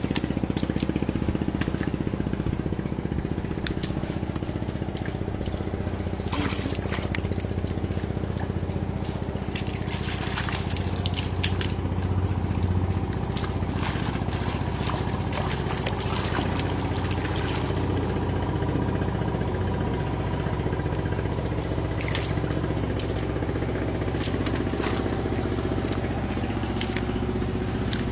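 A steady low motor drone runs throughout, with scattered crackles, splashes and squelches as hands dig through wet mud and shallow water.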